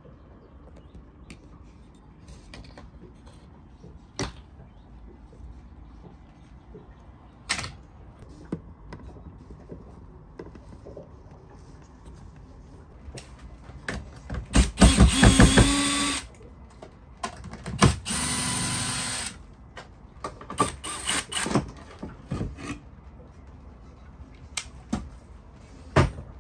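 DeWalt cordless driver backing screws out of a wooden boat dashboard panel: two runs of about two seconds each, a little past halfway through. Scattered sharp clicks and knocks come before and after.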